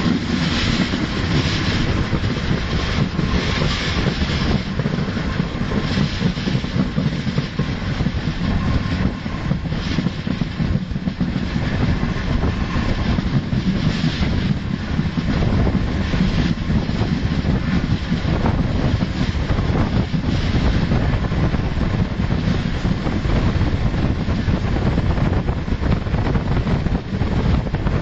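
Intercity passenger train running steadily at speed, heard through an open coach window: continuous wheel-on-rail rolling noise mixed with wind rushing past the microphone.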